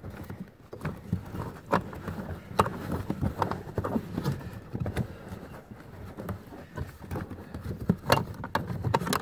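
A cabin air filter being pushed and worked by hand into its housing behind the dash: irregular scraping and rustling with scattered sharp clicks and knocks.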